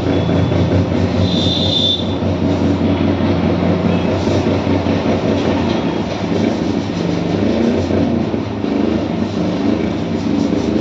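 Loud, steady drone of a running machine, a low hum that holds throughout, with a brief high squeal about a second and a half in.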